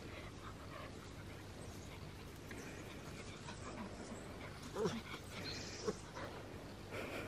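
Dogs at play, with two short dog vocalizations about a second apart a little past the middle.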